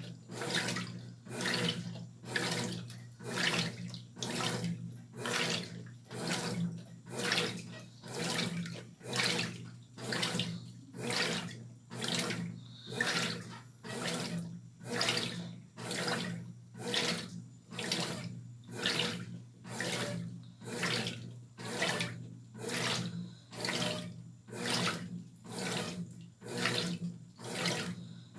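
Brastemp BWR12AB top-loading washing machine agitating a load of dark clothes in water: a swish of water and laundry about once a second, over the steady hum of the motor.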